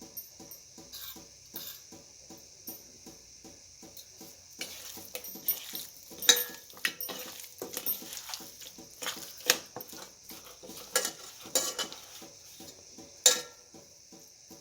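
Utensils clinking and scraping in a bowl as spice-coated fish are mixed and handled. The first few seconds hold faint, even taps; from about four and a half seconds in, busier scraping starts, with several sharp clinks.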